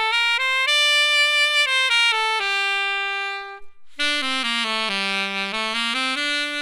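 Alto saxophone playing two slurred, step-by-step phrases. The first is in the upper register, climbing and then falling back. After a short break for breath about four seconds in, a low-register phrase dips down and climbs back up. It demonstrates playing the upper notes with the same open throat as the low ones.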